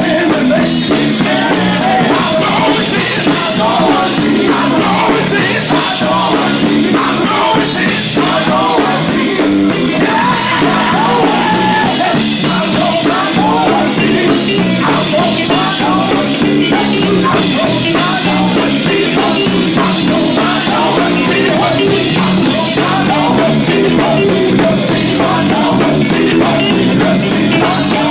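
Live gospel band playing with a drum kit, a lead voice singing over it at full volume.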